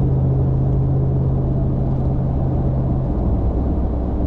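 Cabin noise of a Ram TRX at about 70 mph: steady road and tyre rumble under a low drone from its supercharged 6.2-litre V8. The drone drops lower in pitch about three seconds in.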